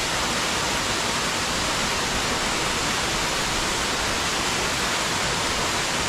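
Waterfall pouring into its plunge pool: a constant, even rush of falling water with no breaks.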